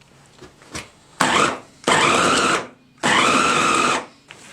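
Electric meat grinder switched on in three short bursts, each under a second long, mincing small chunks of pork.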